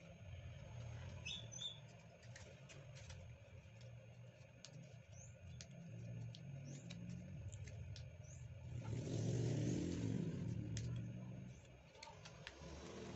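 Origami paper being folded and creased by hand: faint crinkles and soft clicks. A few short high chirps sound about a second and a half in, and a louder swell of noise comes about nine seconds in.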